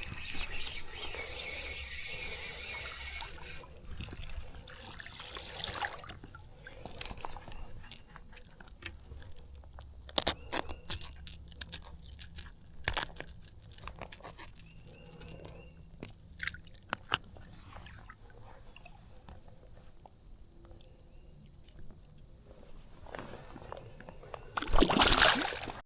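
Insects buzzing in a steady, high, even drone, with scattered sharp clicks and taps. A louder rustling bump comes near the end.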